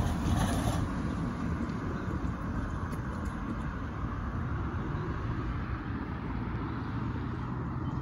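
Road traffic going past: a van and then a car drive by, with a steady low rumble of wind on the microphone. A low, steady hum comes in about halfway through and holds.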